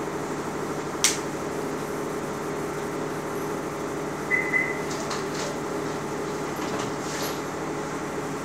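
Steady low room hum with a few sharp clicks and knocks, the loudest about a second in, and a brief high beep a little past four seconds.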